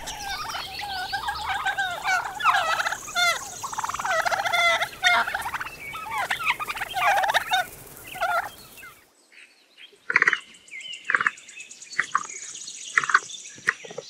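Domestic turkeys gobbling, many calls overlapping at once. About nine seconds in, the sound cuts to a quieter flock with fewer, separate calls.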